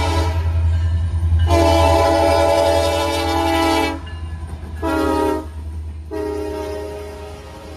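Canadian National diesel locomotive's air horn sounding a multi-note chord in the long, long, short, long pattern of a grade-crossing signal. It starts with the tail of one long blast, then another long blast, a short one, and a final long blast that fades as the locomotives go by. The low drone of the diesel engines runs underneath.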